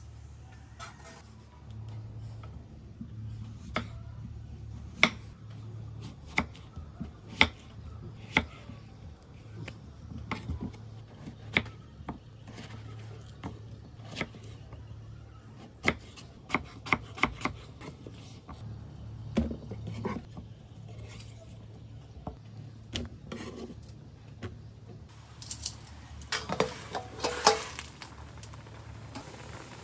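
Knife cutting potato on a wooden chopping board, with sharp, irregular strokes. Near the end there is a louder cluster of metal clanks as a steel basin used as a lid is lifted off a wok.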